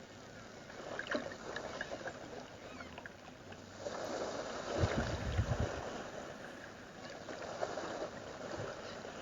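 Ocean water sloshing and washing steadily, with a heavier low surge of water about five seconds in.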